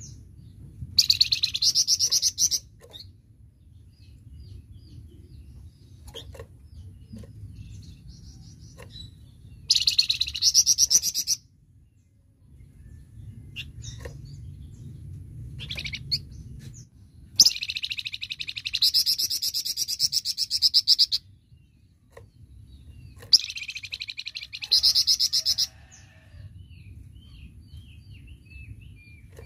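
Flamboyan songbird singing in rapid-fire 'tembakan' bursts: four loud runs of very fast repeated high notes, each lasting one to three and a half seconds, with softer scattered chirps between them.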